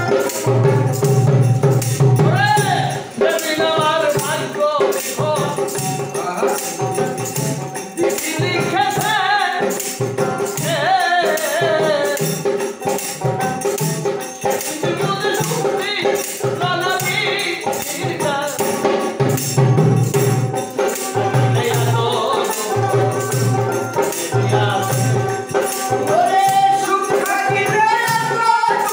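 Bengali baul folk song: male voices singing over small brass hand cymbals (mandira) struck in a steady rhythm and a plucked dotara.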